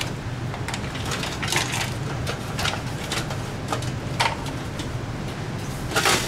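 Scattered clicks, taps and rattles of power-supply cables and the sheet-steel desktop computer case being handled as the power supply unit is worked loose, with a cluster of knocks near the end, over a steady low hum.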